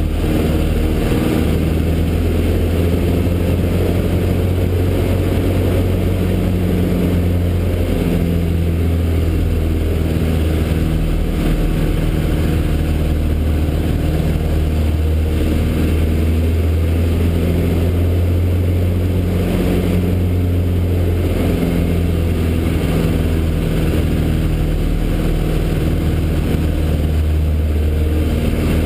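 Cockpit sound of a 1969 Citabria 7ECA's 115 hp engine and propeller in flight, a loud, steady drone whose pitch shifts slightly a few times as power and airspeed change through aerobatic manoeuvres, with rushing air noise behind it.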